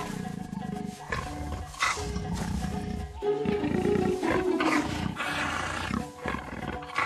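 Leopards growling in rough bursts of about a second each as a cub play-fights with its mother, over background music with held notes.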